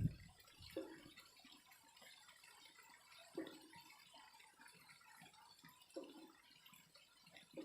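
Faint water drops plopping one at a time, about every two and a half seconds, over a soft steady hiss.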